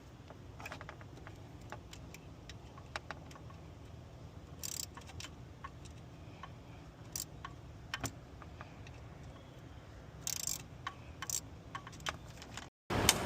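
Irregular light clicks and clinks of hand tools and small parts being handled, with two short scraping rustles, over a low steady hum.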